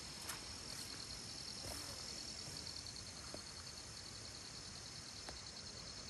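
A steady, high-pitched chorus of insects in forest undergrowth, one of them trilling in rapid, even pulses, with a few soft ticks scattered through it.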